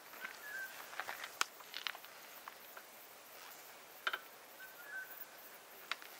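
Faint scattered clicks, knocks and rustles of a rider handling luggage strapped to a motorcycle's rear rack, with a shuffling step or two. Two short high chirps come in about a third of a second in and again near five seconds.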